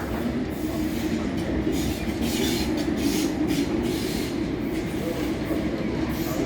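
A train running along the station tracks: a steady rumble with irregular metallic wheel-on-rail clatter and hiss.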